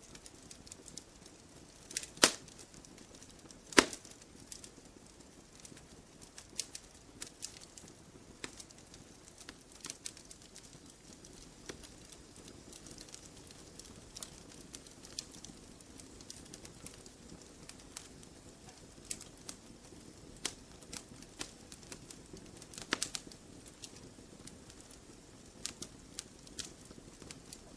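Campfire of burning logs crackling: irregular sharp snaps and pops over a low steady hiss, with two loud snaps about two and four seconds in and a flurry of pops about three-quarters of the way through.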